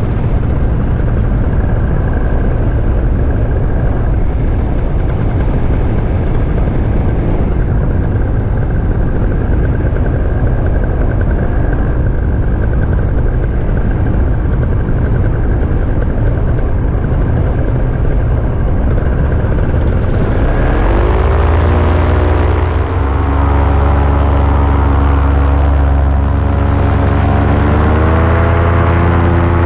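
Paramotor engine and propeller running in flight, heard through heavy wind noise on the microphone. A little after twenty seconds in, the engine note comes through clearly and its pitch rises and falls with throttle changes, just after a brief rising whistle.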